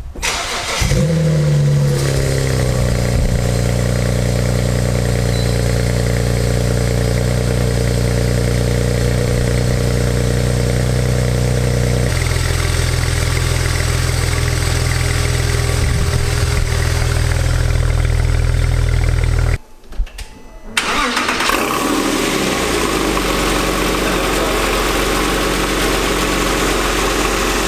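Six-cylinder car engine cold-starting, flaring up on catching and settling into a steady fast idle that steps down to a lower idle about twelve seconds in. After a brief break near twenty seconds, an engine starts again and its revs fall back to a steady idle.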